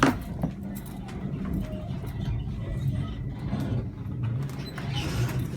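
Steady low rumble of an electric intercity passenger train, heard from inside a carriage, with a couple of sharp knocks right at the start.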